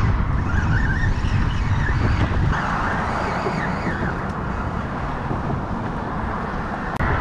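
Steady low rumble of wind on the microphone and passing road traffic.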